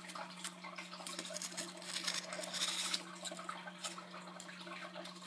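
Rustling and small irregular clicks of hands working craft scraps, over a steady low hum.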